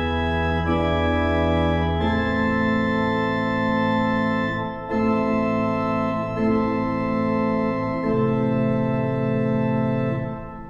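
Organ playing held chords of a short Classical-era prelude, the harmony changing every second or two. A final chord is released about ten seconds in, leaving a short fading echo.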